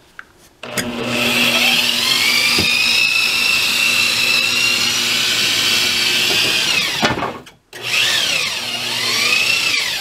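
Handheld electric drill turning a worm-gear crank to lower a roll-down insulated curtain. The motor whine rises as it spins up about half a second in, runs steadily, winds down and stops about seven seconds in, then spins up again for a second run.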